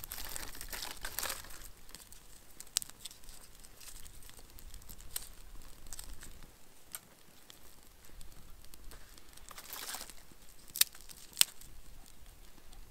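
Small stick fire crackling in a folding firebox stove, with scattered sharp pops, the loudest two near the end, mixed with rustling and crinkling as clothing and gloves are handled.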